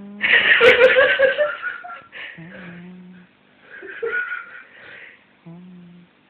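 Domestic cat snoring loudly in rhythm, about one breath every three seconds. Each breath is a steady low hum followed by a louder raspy snort.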